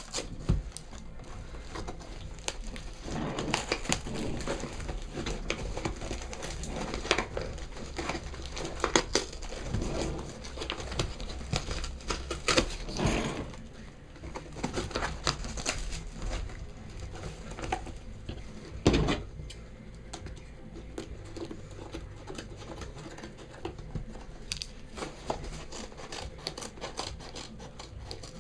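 A package being opened by hand: packing material crinkling and tearing, with scattered clicks and knocks from handling, the loudest knock about two-thirds of the way through.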